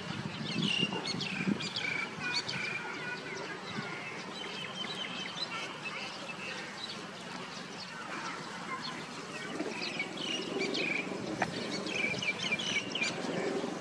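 Small birds chirping and twittering, many short high calls in quick clusters, busiest at the start and again near the end, over a steady low background hum.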